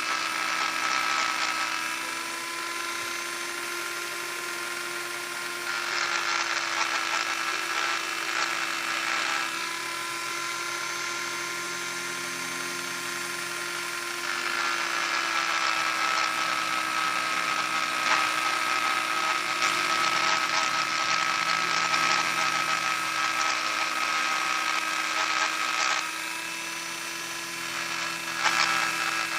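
Dremel rotary tool running with a steady high whine while sanding the rough edge of a coaster. The grinding hiss grows louder for several stretches as the bit is pressed into the piece, the longest in the middle.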